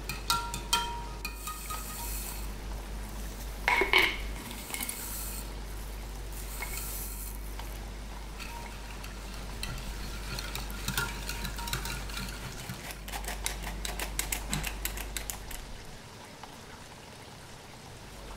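Wire whisk stirring cake batter in a glass dish, its wires clicking against the glass, with one sharp ringing clink about four seconds in and a brisk run of clicks later on.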